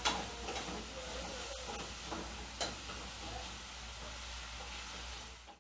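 Chopped onion sizzling in hot oil in a frying pan, a steady hiss with a couple of light clicks against the pan.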